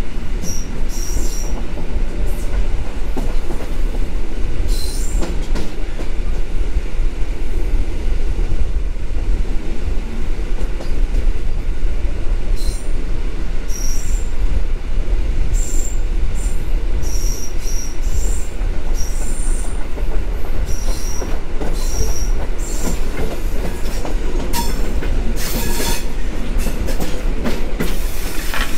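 Pafawag EN57 electric multiple unit running at speed, heard from an open window beside the train: a steady rumble of wheels on rail, with short high-pitched wheel squeals coming and going in scattered clusters and a few seconds of sharper scraping near the end.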